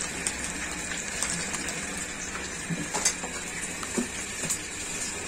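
Hot oil sizzling steadily around a whole chicken deep-frying in a pan, with scattered small pops and crackles.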